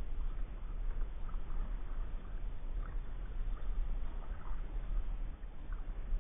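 Kayak being paddled: the paddle blades dip into the water with small splashes and drips, over a steady low rumble.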